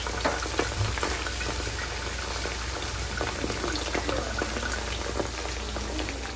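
Chicken pieces and curry leaves deep-frying in hot oil in a small steel kadai: a steady sizzle and bubbling, dotted with many small crackles.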